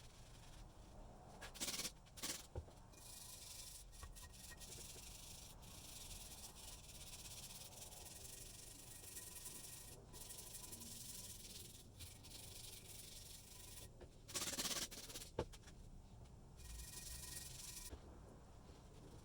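Hand abrasive scrubbing on the metal of a rusty vise, in long strokes a second or more apiece with short breaks, and a few louder scrapes, about two seconds in and near the three-quarter mark.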